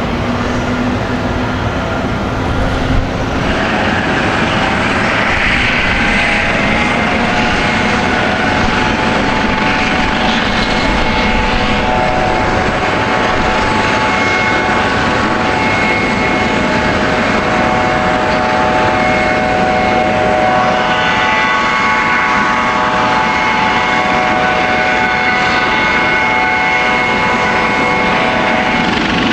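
Steady drone of ship engines and machinery, with several held whining tones over a low rumble; the tones grow stronger partway through.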